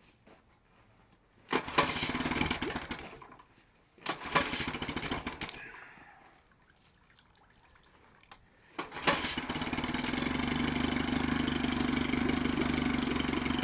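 Evinrude Big Twin 25 hp two-cylinder two-stroke outboard motor being started. It fires twice in short bursts that die away, then catches about nine seconds in and keeps running steadily.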